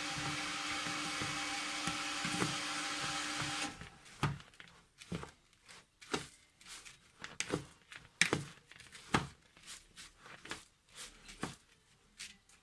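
Small electric kitchen chopper motor running steadily with a light hum, switching off about four seconds in. It is followed by scattered light clicks and knocks of the food and utensils being handled.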